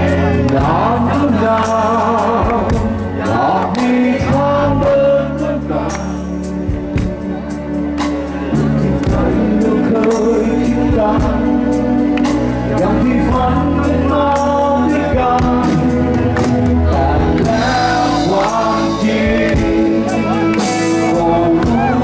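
Thai rock band playing live through a large PA: electric guitars, bass and drums with cymbal crashes under a male lead vocal.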